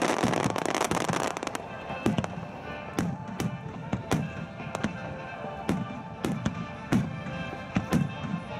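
Starmine fireworks display: a dense crackling shower of bursting stars for about the first second and a half, then sharp bangs of shells going off about twice a second. Music plays through loudspeakers underneath.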